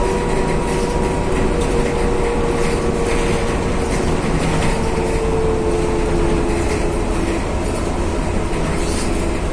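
Mercedes-Benz O405GN2 articulated low-floor city bus heard from inside while under way: a steady drivetrain rumble with a whine that slowly falls in pitch, and rattling from the body and fittings.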